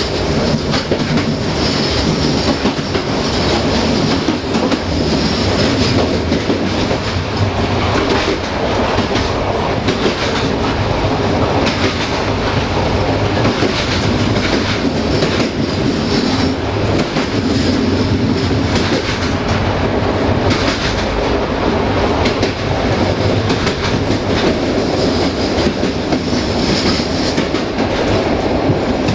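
Railway passenger coach rolling along the track: a steady rumble of wheels on rail with a running clickety-clack of wheels crossing rail joints.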